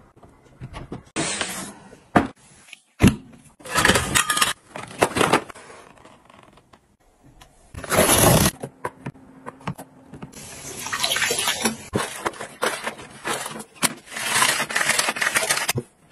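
A string of short household chore sounds: separate knocks and rustles, then, about eight seconds in, a utility knife slitting the packing tape along a cardboard box in one loud rasp. After that come longer stretches of steady hissing noise.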